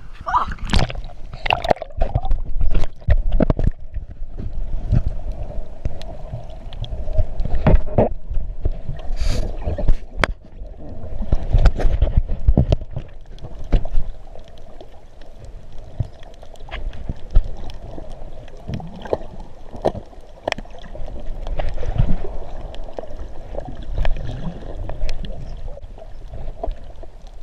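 Muffled sloshing and gurgling of sea water, with many short knocks and clicks scattered through it.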